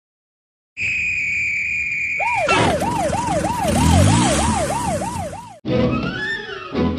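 A police whistle blown in one steady, shrill blast about a second in, followed by a police-car siren wailing up and down rapidly, about three to four cycles a second, over a loud rushing noise. The siren cuts off suddenly near the end.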